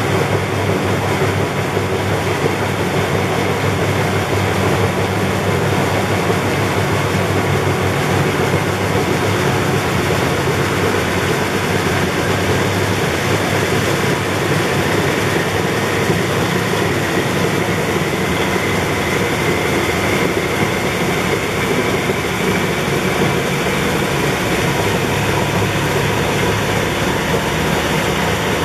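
Philips SlimStar HN3156 front-loading washing machine running without pause, its belt-driven drum and motor making a loud, steady whir. A faint higher whine rises slightly partway through.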